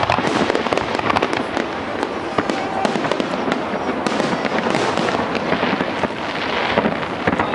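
Aerial fireworks bursting: a dense, continuous crackling and popping of many shells, with scattered sharper bangs and a thicker stretch of crackle from about four seconds in.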